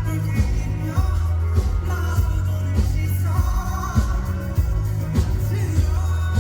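Live pop-rock band music with a singer, heavy bass and drum hits, heard from the audience in a large hall.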